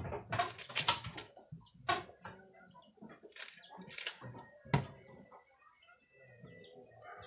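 Kitchen knife cutting through a handful of papaya shoots held over a plastic basin: a series of sharp, irregular cuts, most of them in the first five seconds. Chickens cluck and chirp faintly in the background.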